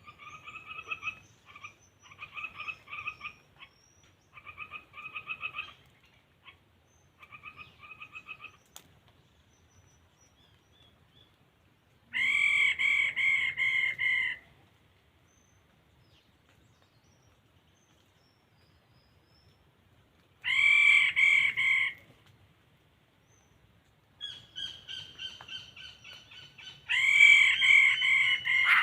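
Laughingthrush calling in phrases of rapid, repeated harsh notes. Several bursts come a few seconds apart, the louder ones in the middle and near the end.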